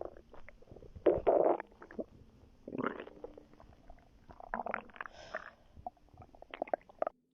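Stomach and bowel sounds from a late-pregnancy belly: irregular gurgles and growls in separate bursts, the loudest a little over a second in, cutting off suddenly near the end.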